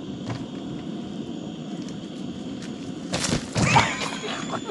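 A man swinging on a vine hanging from a tree: a steady low rustle, then about three seconds in a sudden burst of rustling and a thud, followed by a short cry.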